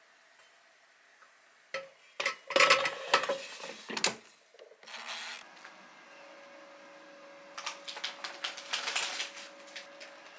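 Kitchen handling noise: a run of sharp knocks and clatter, then a steady low hum with crinkling and clicks of a plastic bag being handled near the end.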